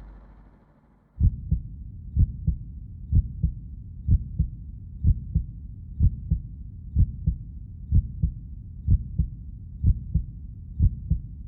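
Heartbeat sound effect: deep paired lub-dub thumps, about one beat a second, starting a little over a second in. The fading tail of a deep boom is heard before it.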